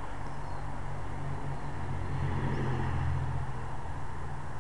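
Low, steady rumble of a motor vehicle engine, growing louder about two to three seconds in and easing off again, with a couple of faint high chirps over it.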